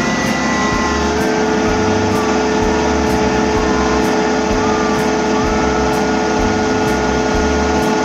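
Hydraulic excavator's diesel engine running steadily, heard from inside its cab, with a steady whine joining about a second in.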